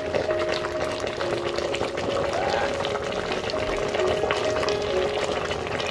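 A pot of crab and vegetables cooking on the stove, bubbling and crackling steadily, with a few steady held tones underneath.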